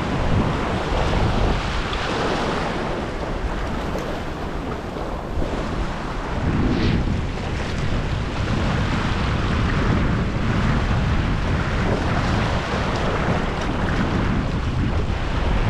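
Ocean swell surging and washing over a rock ledge, with wind buffeting the microphone as a low rumble.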